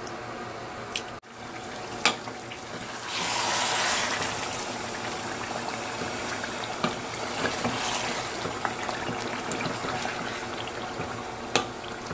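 Pot of Nigerian tomato stew with beef bones bubbling and sizzling in its oil as it simmers. Scattered small clicks run through it, with a louder hiss about three seconds in.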